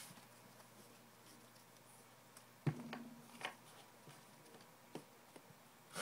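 Mostly quiet room with a few light taps and handling noises of hands and card packs on a desk; the loudest is a single dull knock about two and a half seconds in.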